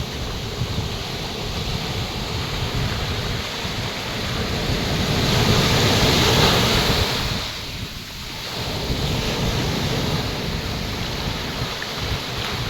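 Atlantic Ocean surf breaking on a beach, a wave crashing loudest about six seconds in before the wash briefly drops away, with wind buffeting the microphone.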